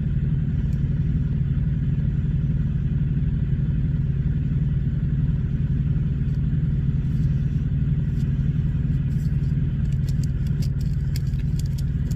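Steady low rumble of an idling vehicle engine, unchanging throughout, with faint crinkling and clicks of packaging being handled near the end.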